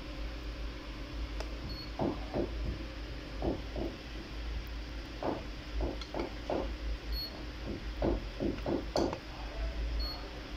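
Three short, high electronic beeps from a CM-8828 coating thickness gauge, a few seconds apart, each marking a reading as its probe is set on the coated sample. Under them run a steady low hum and clusters of short, muffled low sounds.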